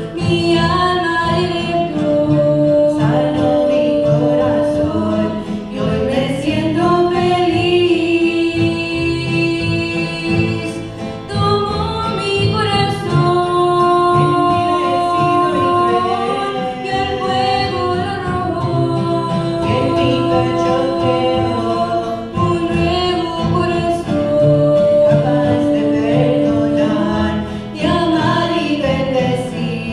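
Two women singing a Spanish-language hymn together with long held notes, accompanied by a strummed acoustic guitar.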